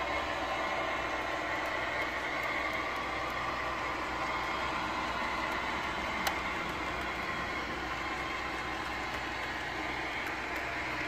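Model freight train cars rolling past on the track, their wheels giving a steady running sound, with one sharp click about six seconds in.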